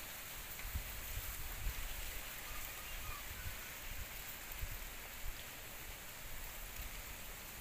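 Steady outdoor background hiss with irregular low rumbles underneath; no distinct sound stands out.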